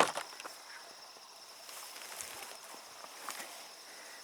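A sharp click right at the start, then faint rustling and a few small clicks over a steady high-pitched tone.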